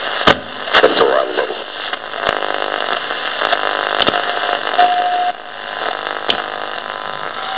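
Pye PE14T Merlin transistor radio being tuned between stations: a steady hiss of static broken by crackling clicks and brief snatches of broadcast. Past the middle, a short steady whistle comes in and cuts off suddenly.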